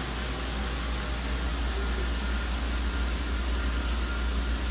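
Steady machine-shop background noise: a low rumble under an even hiss, with no distinct events.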